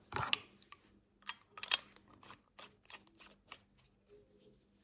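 Light metallic clicks and scrapes of a small tool working the screw and metal parts of a Dupont Line 1 lighter during reassembly. They come as a run of irregular ticks and die away after about three and a half seconds.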